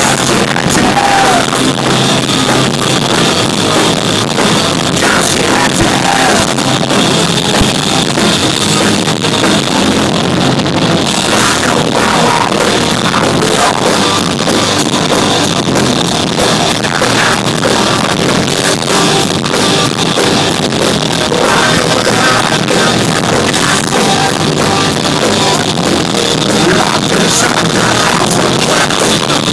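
Horror punk band playing live and loud: distorted electric guitars and a drum kit pounding along without a break, heard from within the crowd.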